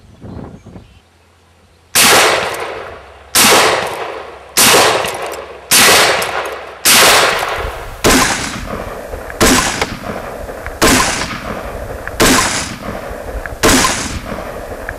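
Scoped rifle fired rapidly: ten shots at a steady pace, about one every second and a quarter, starting about two seconds in, each shot ringing out briefly.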